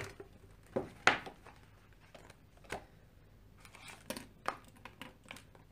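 Handling noises from a coloring book and coloring pens: a string of separate clicks and knocks with some paper rustle, the loudest knock about a second in.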